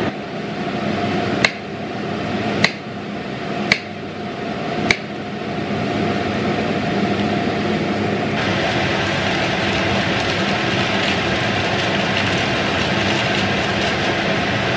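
A knife chopping through a banana onto a plastic cutting board: four sharp chops about a second apart. These give way to a steady noise.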